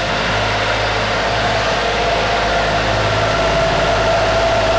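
Boat's inboard engine running steadily, heard up close through the open engine hatch: a low hum with a steady higher tone over it.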